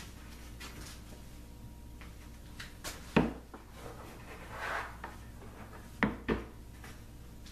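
Wooden blocks being set down and shifted under a workpiece: a sharp wooden knock about three seconds in, a brief scrape, then two knocks close together near the end. No router is running.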